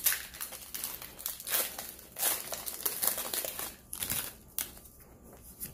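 Pokémon TCG booster pack's foil wrapper crinkling and rustling as it is torn open and the cards are pulled out, in a run of short crackly rustles that die down after about four and a half seconds.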